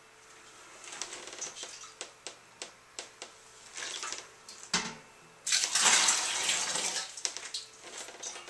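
Water being poured, with one loud rush lasting about a second and a half past the middle. Scattered knocks and clatter come from a large enamel stockpot being handled.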